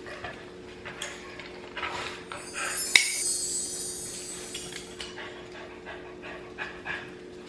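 A pet dog's sounds, with scattered clicks and knocks over a steady low hum. A hiss of noise starts about two and a half seconds in with a sharp click, then fades out by about five seconds.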